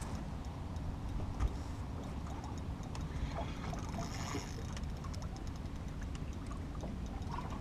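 Wind buffeting the microphone and choppy lake water lapping against a boat's hull, with faint scattered ticks and a dull knock about one and a half seconds in.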